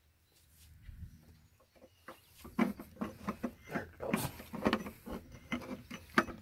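Steel pry bar levering the oil pump off a John Deere 6466 diesel engine block: a run of short metal knocks, clanks and scrapes as the pump works loose.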